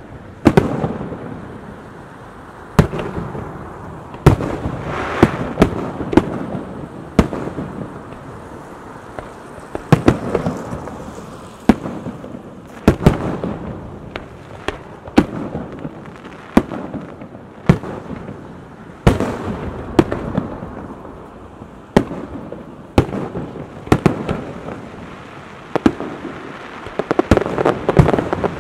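Aerial firework shells bursting: an irregular series of sharp, echoing bangs, one to a few every couple of seconds, with a quicker cluster of bangs near the end.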